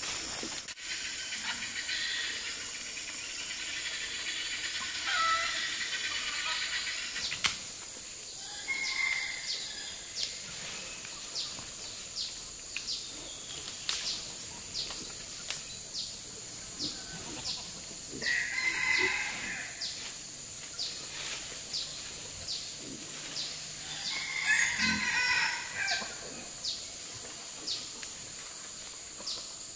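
Roosters crowing about four times, each crow a second or so long, over a steady high insect drone.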